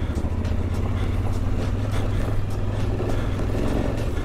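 Adventure motorcycle engine running steadily under load while riding up a loose, rocky mountain track, its pitch nearly even.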